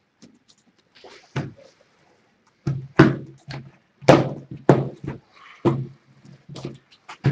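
Irregular knocks and thuds of card decks and plastic deck boxes being handled and set down on a table, about a dozen spread over several seconds, with a brief rustle a little past halfway.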